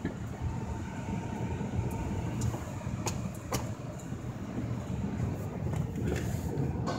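Car wash tunnel machinery heard from inside the car: a steady low rumble with a few sharp clicks and knocks scattered through it.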